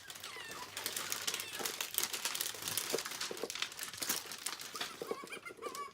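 Plastic packaging and wrapping crinkling and rustling in irregular crackles as toys are unwrapped by hand, with a few short high wavering tones near the end.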